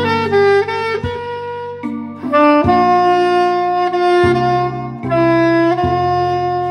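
Soprano saxophone playing a slow melody of mostly long held notes over an accompaniment track with bass and chords.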